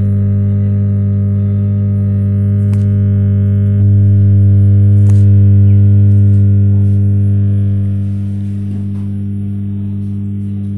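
4.1-channel home theater amplifier putting out a loud, steady mains hum through its speakers, with no programme sound. It swells louder for a few seconds about four seconds in, with a higher tone joining, then settles back. The repairer traces the fault to the first 2030 amplifier IC.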